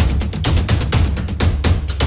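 Background music with a fast, steady drum beat over heavy bass.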